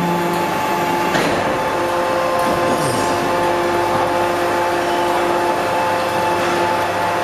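Shisha charcoal briquette press running: a steady machine hum with several held tones as the press head moves down on the moulds, and one sharp knock about a second in.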